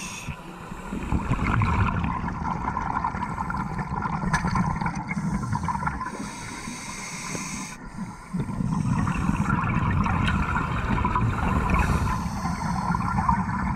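Underwater sound of scuba divers breathing through their regulators: hissing inhalations and rumbling bubbles of exhaled air, muffled through the camera housing. The bubbling grows louder about two-thirds of the way through.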